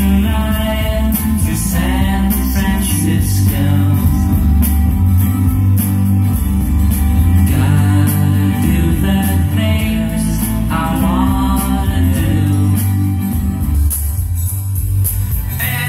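A song with singing and guitar played loud through hi-fi loudspeakers, heavy on the bass.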